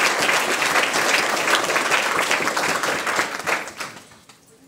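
A small crowd applauding, the clapping dying away over the last second or so.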